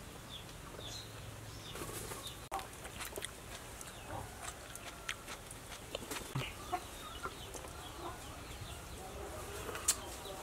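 Chickens clucking in the background, with scattered light clicks of chopsticks against small glass bowls.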